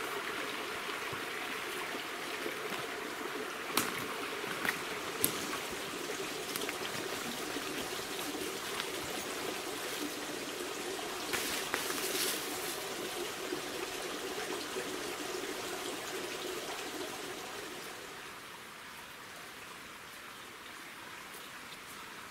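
A woodland stream running steadily, with a few sharp cracks about four seconds in and again around twelve seconds. The water sound drops away somewhat near the end.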